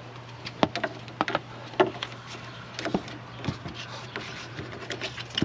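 Irregular clicks, taps and small knocks of hands working at a car's A/C low-side service port and its cap, a few of the clicks ringing briefly, over a steady low hum.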